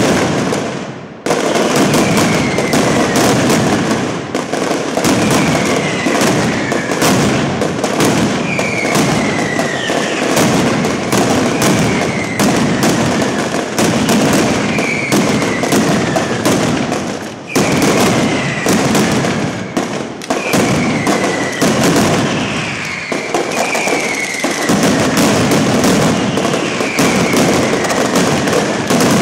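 Mascletà firecracker barrage: strings of ground firecrackers exploding in rapid, continuous succession, loud throughout. A short falling whistle recurs about every two seconds, and the crackle briefly thins about a second in.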